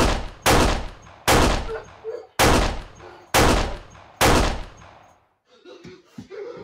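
Six gunshot sound effects at an uneven pace, about a second apart, each loud crack trailing off in a long echo.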